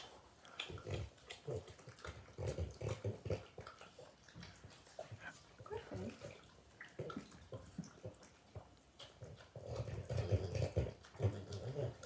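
French bulldogs eating from a hand: wet chewing and mouth clicks with low throaty sounds in irregular bursts, loudest near the end.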